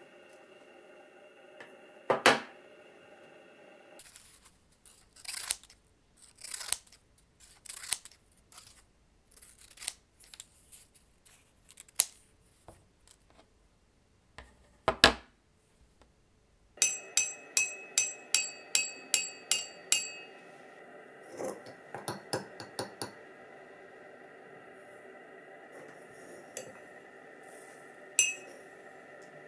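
Steady whirring hum of several tones: the Panasonic Lumix DMC-FZ1000's internal grinding noise picked up by its built-in microphone, under a series of short clicks and clinks. The hum is gone from about four seconds in until about seventeen seconds in, when it returns with a run of quick clicks.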